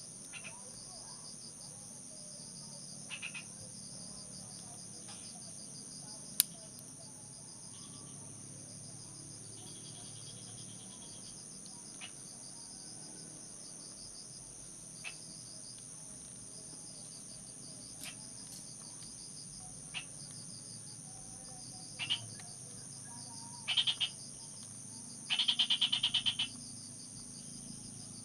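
Steady, high-pitched chorus of crickets and other insects. Over it come a few sharp clicks and short, rapidly pulsed calls near the end, the longest lasting about a second.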